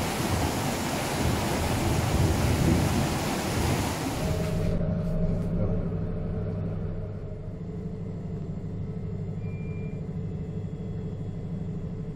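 A loud rushing noise of wind and churned water for the first few seconds, cutting off abruptly, then the steady low drone of a boat's engine with a fine even pulse.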